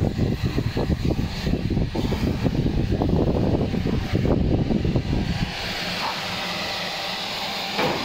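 Meiko K200C commercial dishwasher running: a loud, uneven low rumble that gives way about five and a half seconds in to a steadier hiss.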